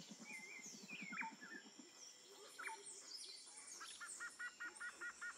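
Several birds chirping and calling: short whistles, downward-sweeping calls, a rapid low pulsing trill in the first two seconds and a quick run of repeated two-note calls near the end, over a faint steady high hiss.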